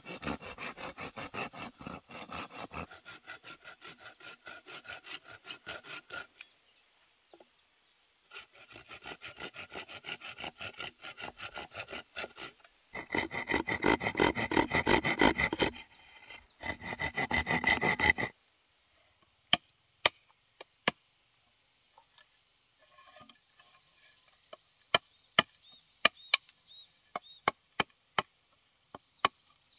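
Hand saw cutting through a dry bamboo pole in quick back-and-forth strokes, in four runs with short pauses. After that, a machete knocks sharply against the bamboo a dozen or so times.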